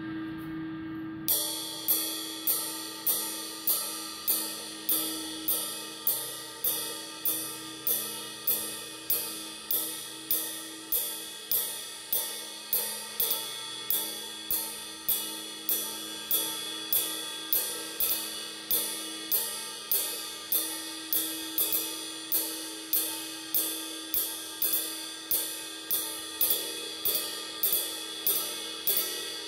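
20-inch vintage Sabian AA Sound Control ride cymbal (2400 grams) struck over and over with a wooden drumstick. About a second in, steady strokes begin at about two a second, each a sharp ping over the cymbal's sustained ringing wash.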